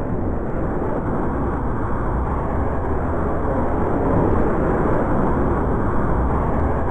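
V-2 rocket motor firing on its launch stand: a steady, dense noise with a deep rumble, slowly growing louder, muffled as on an old film soundtrack.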